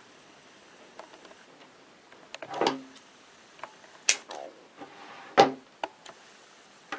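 A few clicks, knocks and a brief scrape of small objects being handled on a work table; the loudest knock comes a little past the middle.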